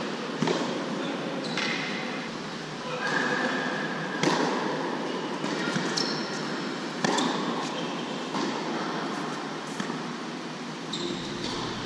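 Tennis ball struck back and forth with rackets in a rally on an indoor hard court, four sharp hits about three seconds apart, each with a short echo from the hall.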